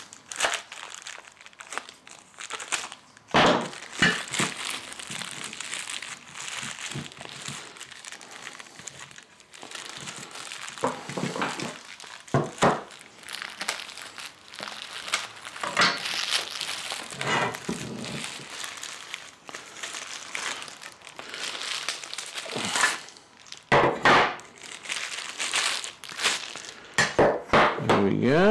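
Plastic bags crinkling as they are handled and cut open with scissors, stiff metal parts slid out of them. Several sharp knocks break in, the loudest near the middle and in a cluster near the end, as the metal stand parts are set down on a wooden bench.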